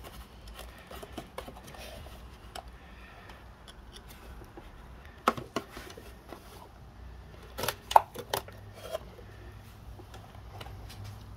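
Small flat screwdriver prying at a plastic wiring clip: scattered light clicks and scrapes, with a cluster of sharper clicks about two-thirds of the way through.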